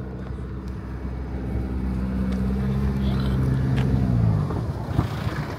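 A car's engine running close by, getting louder for about four seconds and then falling away. A single sharp knock comes near the end.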